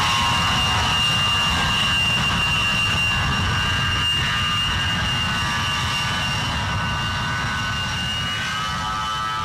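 A pair of A-10 Thunderbolt II jets' TF34 turbofan engines climbing away after takeoff: a steady high whine over a low rumble, slowly fading.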